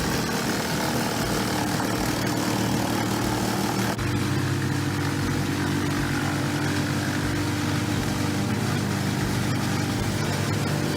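Large engine of heavy logging machinery running steadily, a continuous drone. About four seconds in, the pitch and tone of the drone change abruptly.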